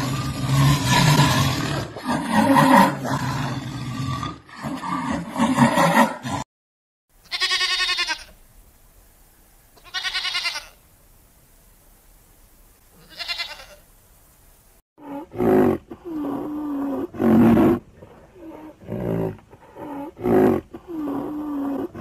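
A jaguar growling and roaring, dense and rough, for about six seconds. Then a goat bleats three times, each bleat about a second long with a wavering pitch. From about fifteen seconds in comes a run of shorter calls from another animal.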